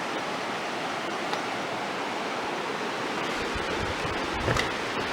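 River water rushing steadily, with a few low thumps in the second half.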